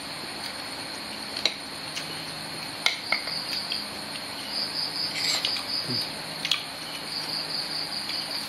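Crickets chirping in a steady high trill that swells and fades in pulses, with metal spoons clinking against plates a handful of times.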